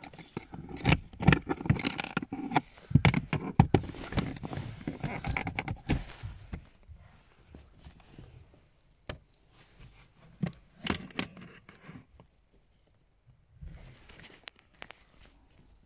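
Close handling noises: rustling, scraping and clicks and knocks of hands and the phone against car interior plastic trim, busy and dense for the first six seconds, then only a few separate sharp clicks.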